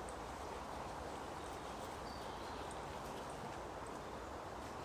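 Faint, steady woodland ambience: an even hiss of air through the trees, with a few faint, short, high bird chirps.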